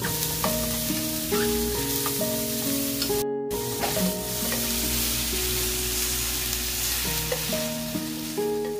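Chopped cabbage sizzling in a hot frying pan as it is stirred with metal tongs. The sizzling breaks off for a moment about three seconds in.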